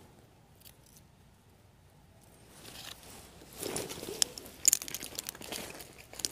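Dry forest leaf litter rustling and crunching, with several sharp crackles, starting about three seconds in after a quiet opening.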